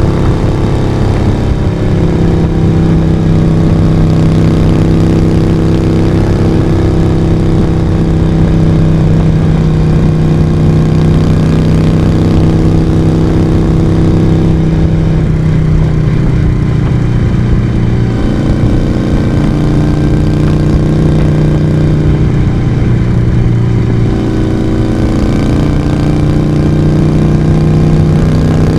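Moto Guzzi V35's air-cooled transverse V-twin running under way, with a steady exhaust note. Its pitch sags around the middle and climbs again near the end.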